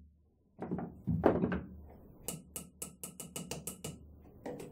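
Wooden stick tapping the laminated steel core of a microwave oven transformer: a quick run of about nine light taps, roughly five a second, each with a brief metallic ring, then two more taps near the end.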